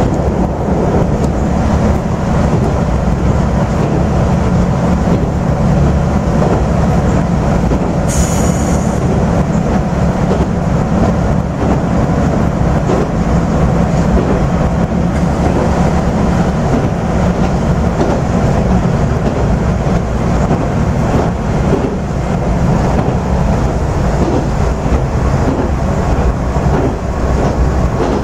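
AN8800 diesel railcar running at speed, heard inside the passenger cabin: a steady drone of the engine and the wheels on the rails. About eight seconds in there is a brief high-pitched sound.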